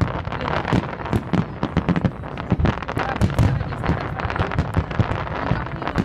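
Fireworks display: a rapid, irregular barrage of bangs from aerial shells bursting, several a second, over a low rumble.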